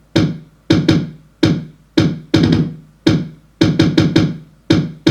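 A programmed kick drum part from a hip-hop beat, played on its own. It is a syncopated pattern of kick hits, about two a second with some quick doubles, each dying away fast.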